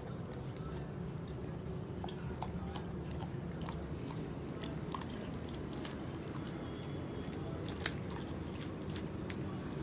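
German shepherd chewing and biting its meat meal, with scattered short clicks and crunches of teeth over a steady low background hum; one sharper click near the end.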